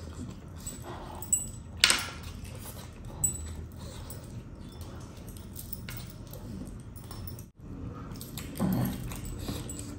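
Stacked metal bracelets and rings jangling and clinking as bare hands pick through fish on a plate, with sharp clinks about a second and two seconds in and again near three seconds, over mouth noises of eating. A short low vocal sound from the eater comes near the end.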